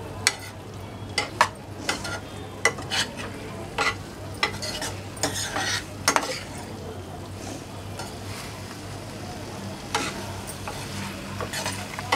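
A metal spatula stirring and gently tossing paneer and vegetables in thick chilli sauce in a pan, with irregular clicks and scrapes against the pan over a steady sizzle of the sauce frying.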